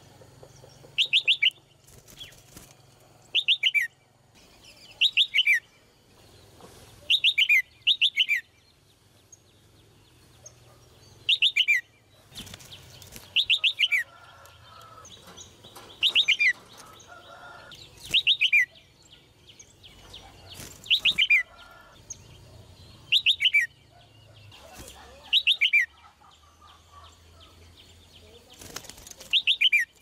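Red-whiskered bulbul calling over and over: a short, quick run of notes falling in pitch, repeated about every two seconds, sometimes twice in a row, about a dozen times.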